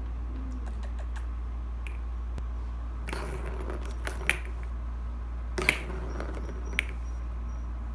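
Ragdoll kittens batting plastic balls around the track of a cat scratcher toy: three sharp plastic clicks and knocks with short scraping rustles, over a steady low hum.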